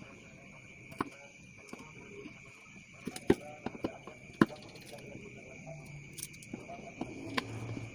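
A kitchen knife knocking sharply against a wooden cutting board a handful of times, loudest twice in the middle, as garlic cloves are cut and peeled. A steady thin high-pitched whine lies underneath.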